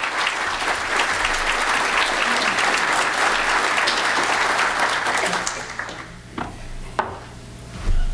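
An audience applauding, which dies away about six seconds in. A few short knocks follow near the end.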